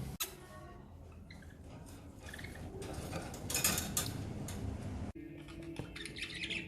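Pet budgies chirping in short high bursts over the patter of rain and dripping water. There are two brief dropouts, about a fifth of a second in and about five seconds in.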